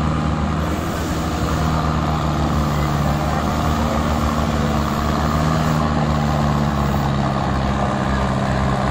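Mahindra 555 DI tractor's diesel engine running steadily under heavy load as it pulls a trailer stacked with sugarcane, with the engines of the other loaded tractors behind it mixed in. The engine note holds a steady pitch and grows slightly louder as the lead tractor comes closer.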